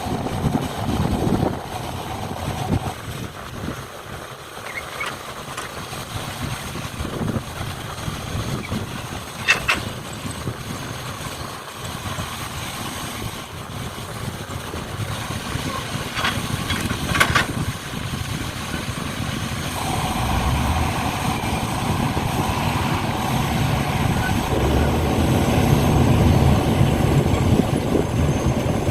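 Model RC trucks and excavators running, an uneven mechanical engine-like sound with a few sharp clicks partway through. It grows louder and heavier toward the end.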